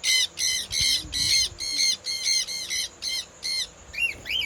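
A parrot squawking over and over, harsh calls about two to three a second, ending with two shorter rising calls.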